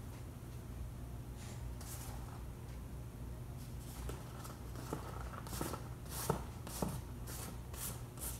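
Soft rustling and scraping as shredded mozzarella is pushed with the fingers off a paper plate into a ceramic casserole dish, with a few small taps and clicks in the second half.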